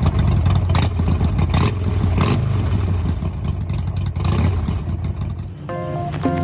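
Car engine running with a loud low rumble and a few short louder surges; music begins near the end.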